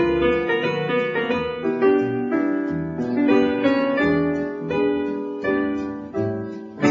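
Piano playing a light, cocktail-style medley of Broadway show tunes, with a softer dip shortly before a loud chord at the very end.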